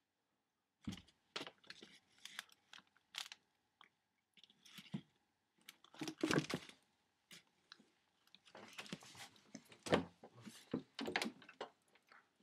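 Irregular scratching, rustling and knocking as a cat scrabbles in a plastic laundry basket of clothes, clawing at its rim. These are the clumsy, repeated attempts of a cat with cerebral hypoplasia who cannot balance well enough to hop out.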